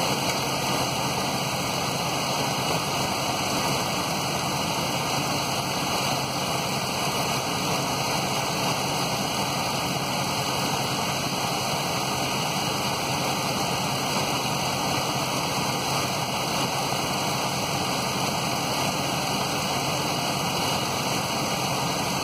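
Steady rushing, hiss-like noise around a 2005 Dodge Dakota left idling in neutral for a transmission fluid level check, with no distinct engine beat.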